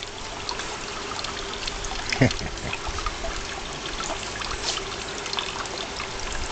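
Water trickling steadily, with a short falling note about two seconds in.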